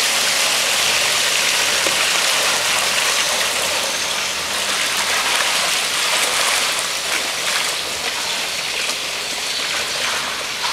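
Viscous, gel-thickened copper sulphate foot-bath solution pouring in a steady stream from a tipped plastic drum into a shallow foot bath, splashing as it lands.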